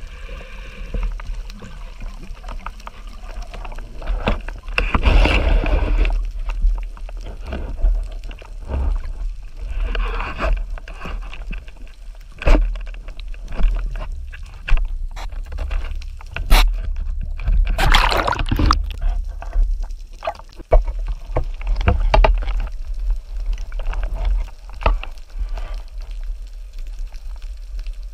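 Underwater sound heard through a camera on a pneumatic speargun: water swishing and gurgling over a steady rumble, with rushes of bubbles about five seconds in, ten seconds in and longest near eighteen seconds, and a few sharp clicks in between.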